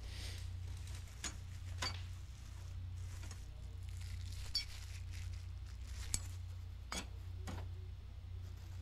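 Indoor shop room tone: a low steady hum with about six short, sharp clicks scattered through it.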